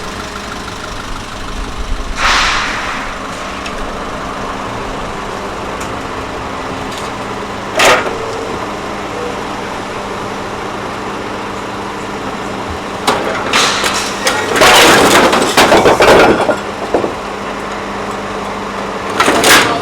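Truck engine idling steadily, with loud clattering, scraping bursts over it: a short one about two seconds in, a sharp one near eight seconds, a long jumble of them about two-thirds of the way through, and another near the end.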